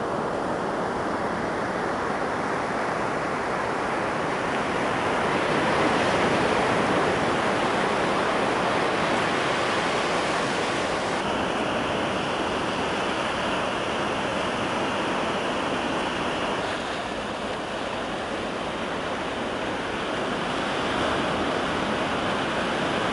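Ocean surf: breaking waves and white water washing in a steady rush, its tone changing abruptly twice along the way.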